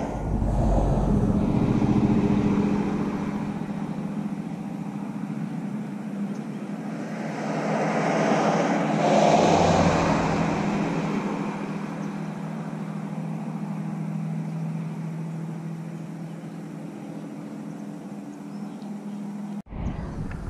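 Engine running steadily with a low hum, swelling louder about eight to ten seconds in and then easing off; the sound breaks off abruptly near the end.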